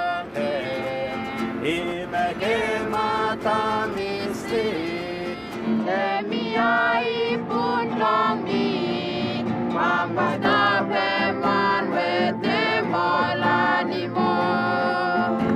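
A local band's song: several voices singing together to a plucked guitar accompaniment.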